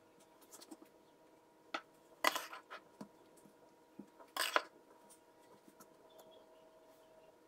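A metal spatula clinking and scraping against a cake board and dishes while cream is spread on the sponge layers: a few light clicks and two louder scrapes about two seconds apart, over a faint steady hum.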